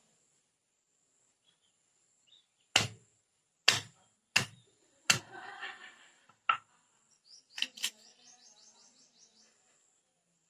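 Several sharp, irregular knocks, about seven, with a bird's rapid run of short chirps near the end over a faint steady high insect whine.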